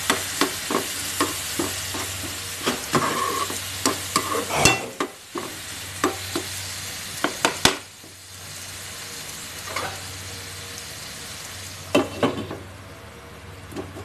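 Tomato and onion masala sizzling in a non-stick frying pan while a spatula stirs it, clicking and scraping against the pan many times over the first eight seconds, then only now and then. A few knocks about twelve seconds in as a glass lid goes on, after which the sizzling becomes quieter.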